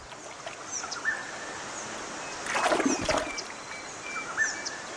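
River ambience: birds calling in short chirps and brief whistles over a steady wash of water, with a louder splash of water a little past halfway.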